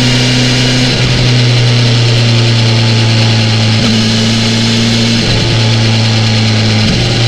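BMW S1000XR's inline-four engine running at a steady cruise on the road. The note holds level, with a few slight shifts in pitch.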